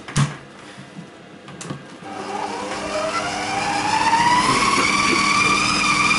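Compact Cook Elite multicooker's mixing motor starting about two seconds in and speeding up in a slowly rising whine, growing louder as it beats cheese into choux pastry dough. A few clicks and knocks come before it.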